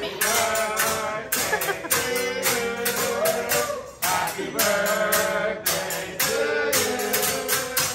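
A song with singing over a steady percussive beat.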